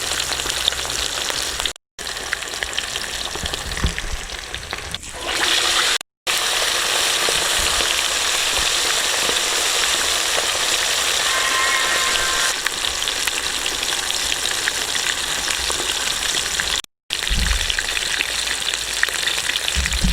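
Whole chickens deep-frying in a pan of hot gingelly oil: a steady, loud sizzling hiss that drops out for a split second three times.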